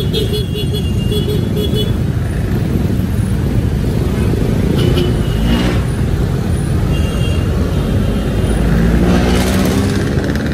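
A vehicle travelling along a city road: a steady, dense low rumble of engine and road noise with traffic around it, and a pitched engine sound rising briefly near the end.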